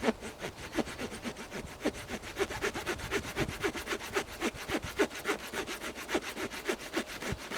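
Pocket-knife saw blade, the Victorinox Ranger Grip 55's, cutting through wood in quick, even back-and-forth strokes, several a second.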